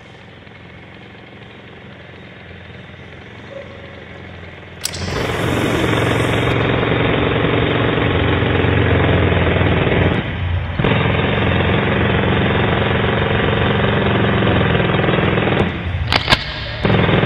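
Jackhammer sound effect played back loudly, starting suddenly about five seconds in and running steadily, with brief breaks around ten seconds and near the end.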